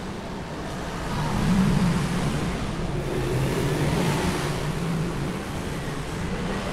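Road traffic noise: a steady rushing sound with a low engine hum, swelling about a second in and easing off toward the end.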